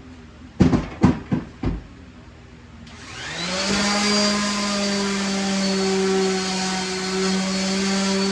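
A few sharp knocks, then an electric motor starts about three seconds in, rising in pitch as it spins up and then running steadily with a constant hum.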